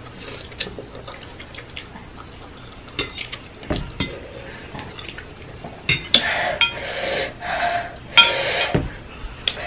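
Metal fork clinking and scraping against a glass baking dish while it stirs and twirls instant noodles, with scattered sharp clicks. The scrapes grow louder from about six seconds in.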